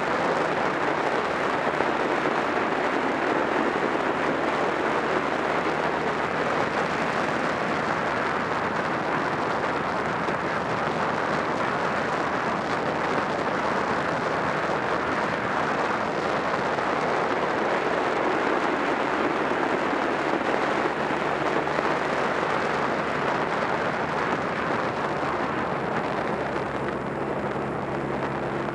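Honda Rebel 250's parallel-twin engine running at a steady cruise under a dense rush of riding wind over the microphone. Near the end the wind eases a little and the engine's low hum comes through more clearly.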